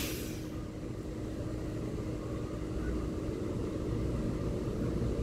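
Taiwan Railway EMU3000 electric multiple unit humming steadily at a standstill, a low rumble with a faint steady tone over it.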